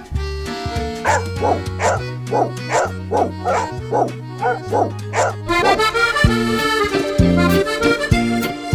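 A small dog yapping in a quick, even run, about three yaps a second for several seconds, over accordion music; the accordion carries on alone near the end.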